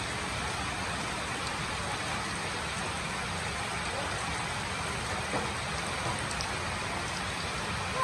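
Steady rainfall, an even hiss of rain on surfaces with no breaks.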